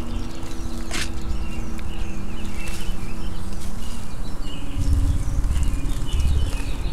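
Eerie film soundscape: a low rumbling drone with held low tones, swelling louder about five seconds in, over small birds chirping and a sharp snap about a second in.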